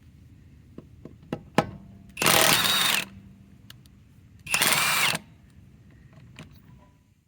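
Harbor Freight Hercules high-torque cordless impact wrench hammering on a lug nut at speed 3, in two short bursts of under a second each. A few sharp clicks come before the first burst.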